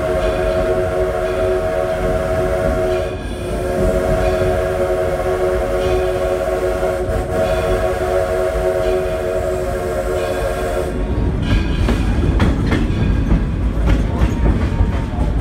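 Steam locomotive whistle sounding a steady chord in two long blasts, a brief break about three seconds in, the second blast cutting off about eleven seconds in, signalling for a grade crossing. After it, the rumble and clatter of the train's wheels over the rail joints.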